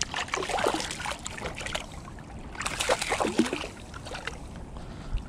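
A released fish splashing at the water's surface as it kicks away, in two bouts of splashing, the second about two and a half seconds in, then gentle lapping water.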